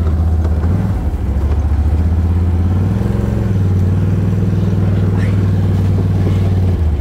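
A motor vehicle's engine running steadily while under way, with a brief rise in pitch about three seconds in.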